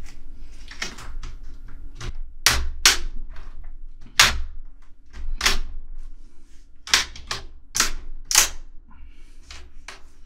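Plastic screen bezel of a Lenovo G50-80 laptop being pried off by hand, its retaining clips popping loose in a run of sharp, irregular clicks and snaps, with a faint creak of plastic between them.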